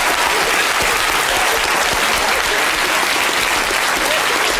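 A large audience of children clapping in steady applause in a lecture theatre.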